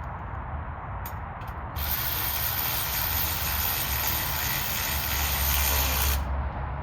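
Ratchet wrench running the bench's nuts down tight: a few separate clicks about a second in, then a fast, continuous ratcheting for about four seconds that stops near the end.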